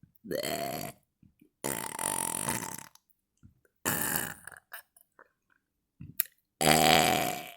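A woman burping on command, four loud burps in a row with short pauses between. The second and the last are long and drawn out, and the last is the loudest.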